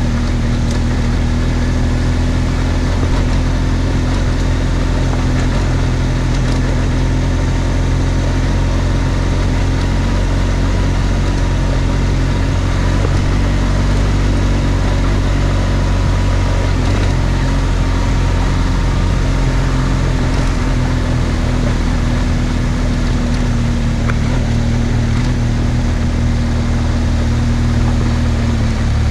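BMW R1200GSA's boxer-twin engine running at steady revs while riding, heard from on board the bike, with an even rush of wind and road noise underneath.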